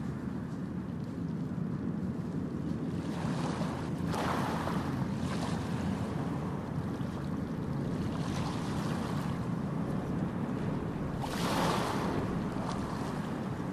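Steady low rumble of the passenger ship KM Labobar's engines running at the quay, with wind gusting on the microphone several times.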